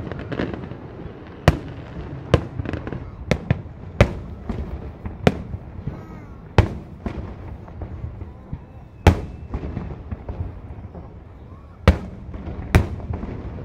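Aerial firework shells bursting in a display: about a dozen sharp bangs at irregular intervals, with crackling and rumble from the bursts between them. The loudest bangs come about nine and twelve seconds in.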